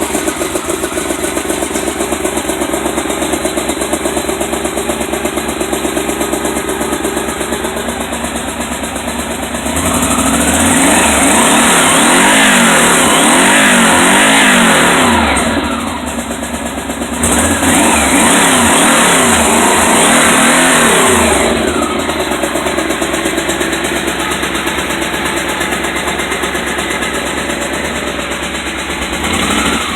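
1983 Yamaha Venture's V4 motorcycle engine running just after its first start on a newly fitted aftermarket TCI ignition box. It idles steadily and is revved up twice, about ten seconds in and again a few seconds later, each time settling back to idle.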